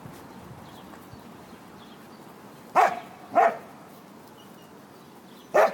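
A dog barking three times: two barks about half a second apart, then a third about two seconds later.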